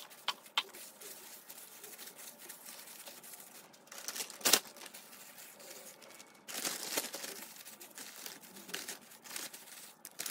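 Light scraping and small knocks of a gloved hand handling garlic and meat, with one sharp knock about halfway. From about two-thirds in comes the crinkling of a plastic zip-top bag being opened and filled with marinated pork chops.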